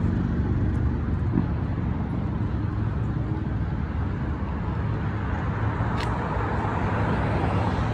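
Road traffic on a busy street: a steady rumble of car engines and tyres, with a faint click about six seconds in.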